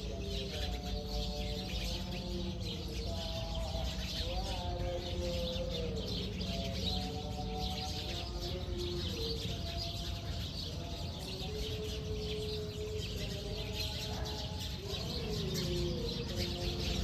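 Many small birds chirping and twittering together, with a faint melody of long held, gliding notes underneath.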